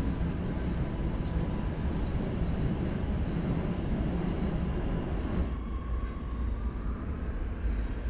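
Oslo Metro subway train heard from inside the car while running along the track: a steady low rumble of wheels on rails with a hiss over it. About five and a half seconds in the hiss thins out, leaving mostly the low rumble.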